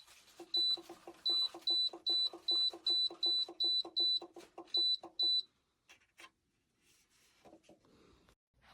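Dreo oil-filled radiator heater's digital control beeping at each button press: a quick run of short, high beeps, about two or three a second, each with a click under it. The beeps stop about five seconds in, leaving a few faint handling clicks.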